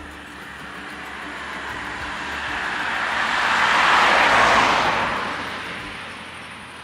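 A car driving past on the road, its tyre and engine noise swelling to a peak about four seconds in and then fading away.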